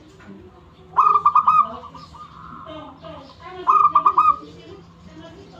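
Zebra dove (perkutut) cooing: two phrases of quick, rolling notes, about a second in and again near four seconds.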